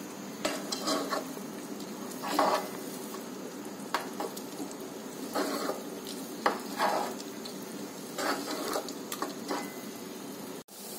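Wooden spoon stirring and scraping thick pea paste as it is roasted in ghee in a pan over a medium flame, with irregular scraping strokes over a steady low sizzle. The sound cuts out briefly near the end.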